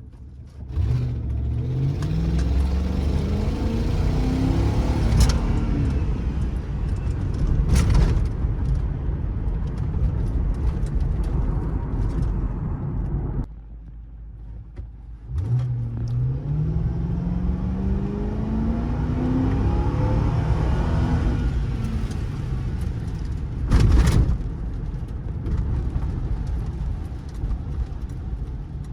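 Ford Crown Victoria's 4.6-litre V8 pulling away twice, its note rising steadily for several seconds and then holding, with a short loud thump in each run.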